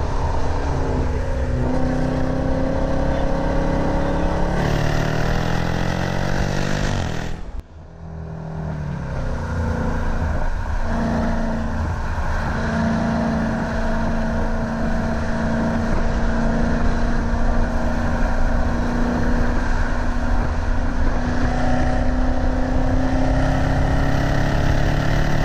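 Supercharged 6.2-litre Hemi V8 of a 2019 Jeep Trackhawk pulling hard on track, heard from inside the cabin. The engine note climbs, drops away sharply for a moment about seven or eight seconds in, then builds back up and runs strongly through the rest.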